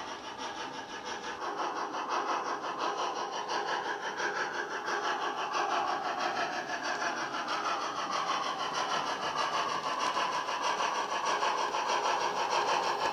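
Recorded steam-exhaust chuffs of a Southern Railway Q1 0-6-0, played by a Loksound 5 DCC sound decoder through a Hornby OO model's speaker, beating in a steady rhythm that grows louder as the model approaches.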